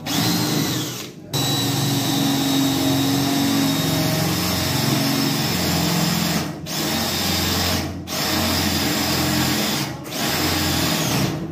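Cordless drill boring a hole through the sheet-metal floor of an electrical panel board enclosure, the motor running steadily under load. It stops briefly about a second in and pauses for a moment three more times before stopping at the end.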